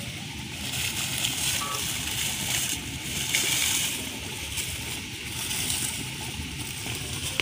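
Dry bamboo leaves rustling and crackling in several bursts as hands rummage and dig through leaf litter and soil, over a steady low rumble.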